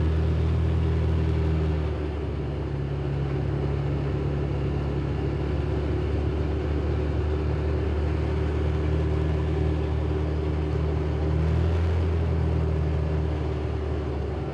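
Can-Am Defender HD10 XMR side-by-side's Rotax V-twin engine running steadily while driving at low speed, heard from inside the cab. The engine note eases slightly about two seconds in and picks up a little around eleven seconds.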